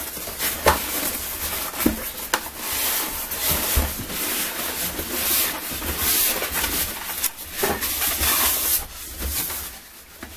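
Tight-fitting polystyrene foam packing insert rubbing and scraping against a cardboard box as it is worked out by hand, with a few sharp knocks along the way.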